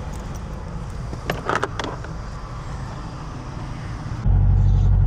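Steady low rumble of motorway traffic and vehicles, with a few light knocks about a second and a half in. Near the end it switches abruptly to a louder steady low drone of road noise inside a moving car.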